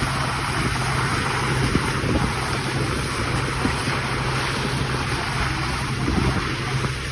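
Strong wind rushing and buffeting the microphone, with a steady low hum underneath.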